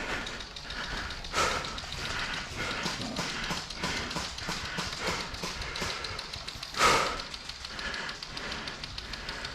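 Footsteps of a player moving in airsoft gear, about two steps a second, with a louder thump about seven seconds in.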